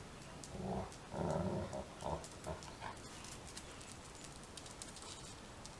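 A dog making a few short vocal sounds in the first couple of seconds.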